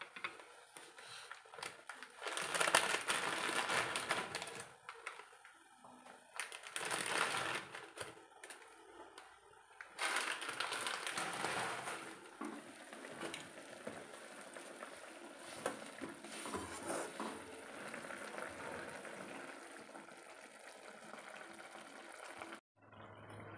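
A plastic instant-noodle (Maggi) packet crinkling and the dry noodle block being crushed into a pan of boiling water, in several loud rustling bursts during the first half. After that comes a steadier, quieter hiss as the noodles cook and are stirred in the pan on the gas burner.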